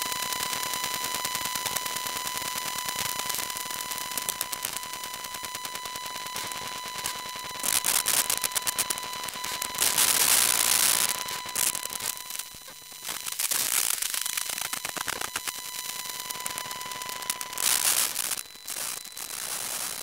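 Electromagnetic interference from a wifi router picked up by a telephone pickup coil: a steady high whine under a dense, buzzing crackle of rapid clicks. Louder bursts of static hiss break in about eight seconds in, around ten to eleven seconds, briefly near fourteen seconds, and again near the end.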